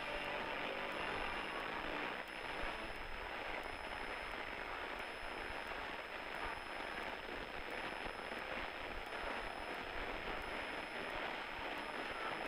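Steady engine and propeller noise of a light single-engine airplane in flight, heard from inside the cockpit as an even hiss with no distinct beat.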